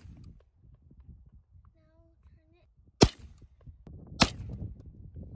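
Two shots from a Ruger PC Carbine, a 9mm semi-automatic carbine, about three seconds in and a little over a second apart.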